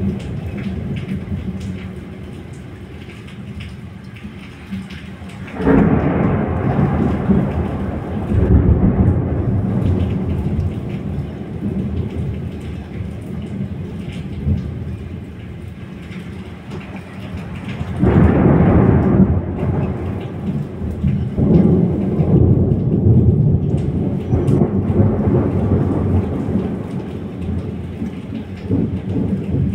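Thunder during a night thunderstorm: three long rolling peals begin suddenly about six, eighteen and twenty-one seconds in and rumble away over several seconds each. Steady rain hisses beneath them.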